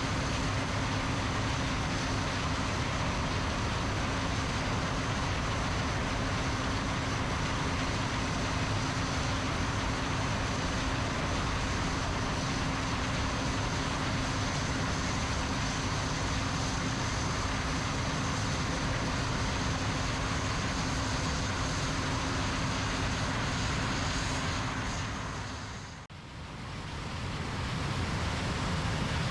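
Combine harvester running steadily while harvesting corn: a continuous machine drone with a low hum and a high whine. Near the end the sound fades down briefly and comes back up.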